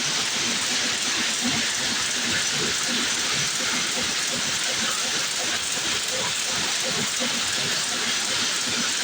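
Rapier weaving loom running at speed: a steady, dense clatter of many small fast knocks over a constant hiss.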